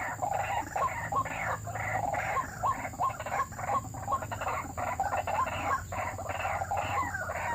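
White-breasted waterhen calls, a fast chorus of repeated croaking notes at about three a second, as used to lure the birds to snares.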